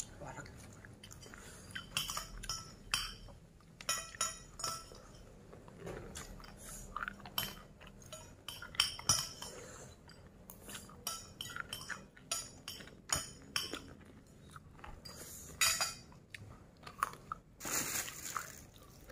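Close-up eating by hand: chewing and crunching with irregular small clicks and crackles, and a brief louder rustling noise near the end.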